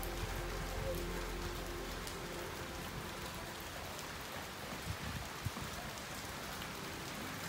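Steady tropical rain falling on the street and roofs, with two sharper taps of drops a little after the middle. A faint low hum under the rain fades out about two seconds in.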